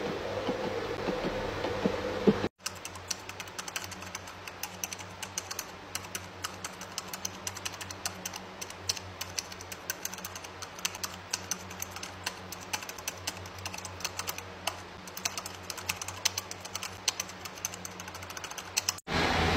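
Rapid, irregular light clicking and tapping, like typing, over a low steady hum. It starts abruptly a couple of seconds in and stops abruptly near the end.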